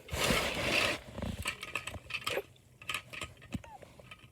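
Small plastic toy pieces being handled: a rustle in the first second, then scattered light clicks and taps.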